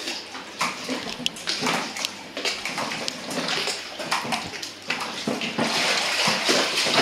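Koi pond water sloshing and splashing, stirred by a man wading in it, with small splashes and knocks throughout. The splashing grows heavier over the last second or so.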